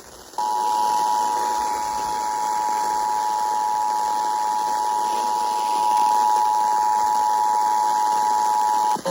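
Emergency Alert System attention signal: the 853 Hz and 960 Hz two-tone alarm, held steady for about eight seconds over radio hiss. It starts about half a second in and cuts off suddenly near the end, announcing a severe thunderstorm warning broadcast.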